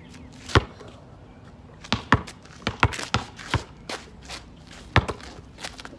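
Basketball hitting the hoop with a sharp knock about half a second in, then bouncing several times on the court, with one more hard bounce near the end.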